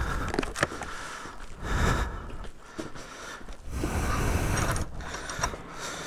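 Metal hasp and padlock clicking and rattling as an old wooden double door is unlatched and pulled open, with several scattered knocks and clicks.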